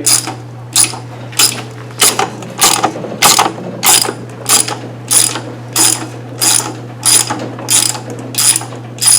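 Hand ratchet with a 10mm deep socket clicking in even back-and-forth strokes, about one and a half a second, as long threaded bolts are backed out.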